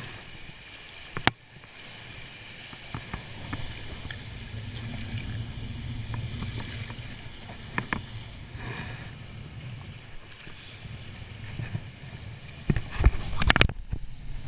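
Shallow surf washing and water sloshing around a wader, with hands splashing in the water. A sharp knock comes about a second in, and a burst of loud knocks and splashes near the end is the loudest part.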